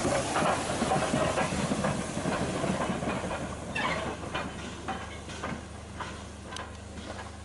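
BR Ivatt Class 2MT 2-6-2 tank locomotive No. 41298 running past close with steam hissing, then moving away and growing fainter. From about halfway, its wheels give a regular clicking about twice a second.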